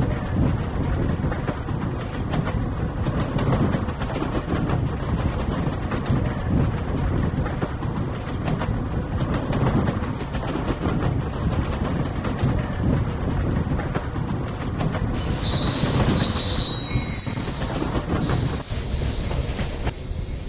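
A passenger train running on the rails, its wheels clattering steadily over the track. About three-quarters of the way through, a thin high squeal of steel wheels on rail joins in.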